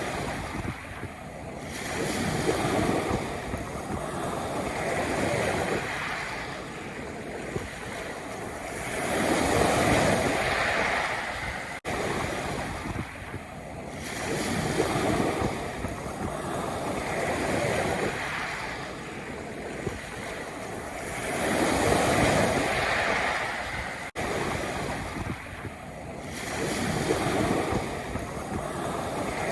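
Sea waves breaking and washing over a pebble beach, swelling every two to three seconds. The same stretch of surf repeats about every twelve seconds, with a brief dropout at each join of the loop.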